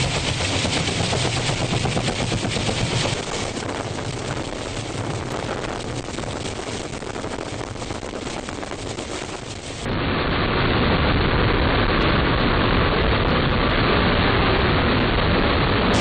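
CH-53E Super Stallion heavy-lift helicopter hovering, its rotor blades chopping in fast, even pulses. About ten seconds in, it cuts abruptly to the loud, steady noise of an F-35B's jet engine in a hover.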